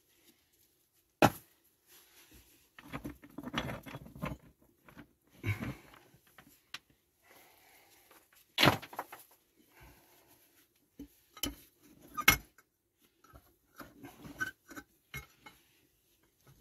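Loose rocks in a stone-filled shaft being shifted and pulled out by hand, knocking and scraping against each other in irregular bursts, with a few sharper clacks.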